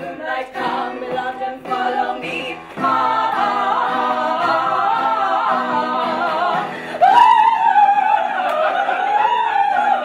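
Women's voices singing together in a stage-musical number. About seven seconds in, one voice rises louder above the others, wavering in pitch.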